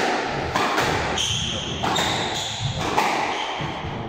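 Squash rally: a string of sharp ball strikes off rackets and the court walls, mixed with short high squeaks of court shoes on the wooden floor.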